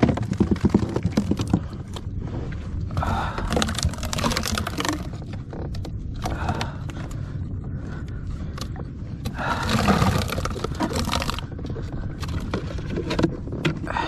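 Scraping and handling noise on a kayak's deck in several bursts, over a steady low rumble.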